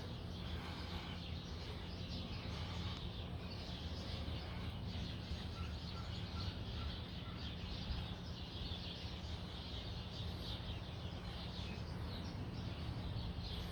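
Outdoor background: a steady low hum and hiss with faint bird chirps, including a short quick run of chirps about six seconds in.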